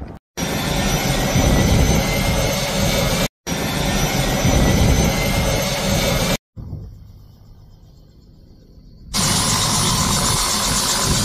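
Helicopter turbine engine and rotor running loud and steady, with a high, even whine over the noise, in short clips cut together. One stretch in the middle is much quieter and muffled.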